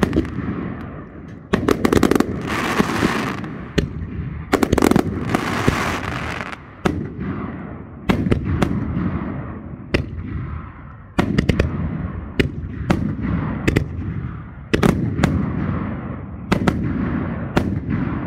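Consumer firework cakes firing in a finale: rapid sharp bangs come in waves every two seconds or so, each wave trailing off in a rolling rumble.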